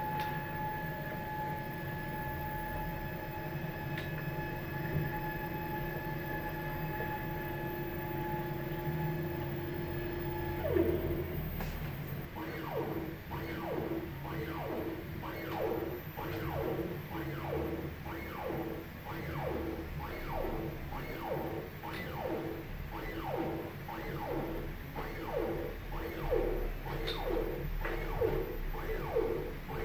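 Stepper motors of a 3D-printed roll-over-azimuth antenna positioner. For about the first third there is a steady whine as the positioner turns continuously. After that comes a rapid series of short rising whines, more than one a second, as the motors start and stop for each point of a point-to-point scan run at 200% of motor speed.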